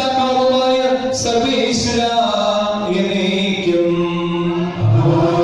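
A man's voice chanting a liturgical text into a microphone, in long held notes that step from pitch to pitch.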